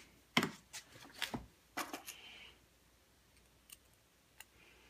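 Light clicks and taps of small hand tools and screws being handled on a workbench: several quick clicks in the first couple of seconds, then two faint ticks.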